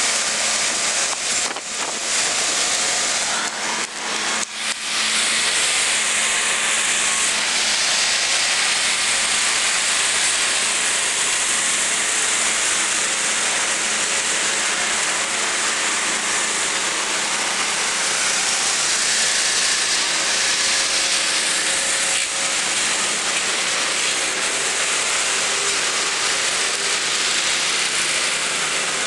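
Steady garage-area background noise: a loud even hiss with a low steady hum underneath, dipping briefly a few times in the first five seconds.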